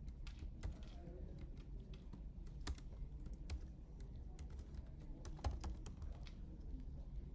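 Typing on a computer keyboard: irregular, scattered keystrokes, a few clicks a second with pauses between them.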